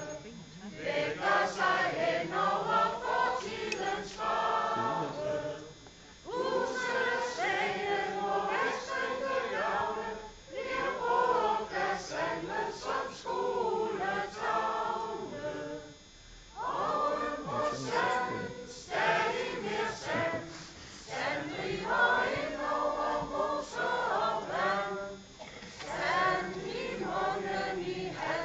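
A choir of many voices singing together, unaccompanied, in phrases a few seconds long with short breaks between them.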